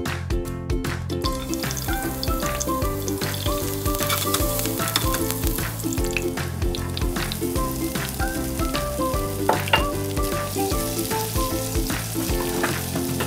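Chopped garlic sizzling in hot oil in a nonstick frying pan and being stirred with a spatula; the sizzle comes in about a second and a half in, over background music.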